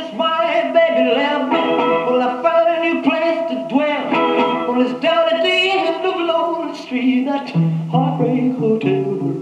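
A 1950s rock and roll record playing through the speaker of a 1956 RCA Victor 7-EP-45 portable 45 rpm record player, with a male voice singing over guitar.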